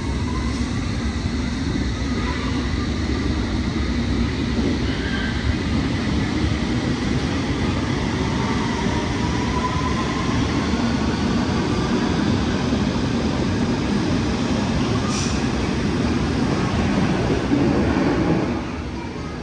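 London Underground S7 Stock train running on the rails, with a faint whine rising in pitch from about eight to eleven seconds in, as a train pulling away makes. The sound drops off suddenly near the end.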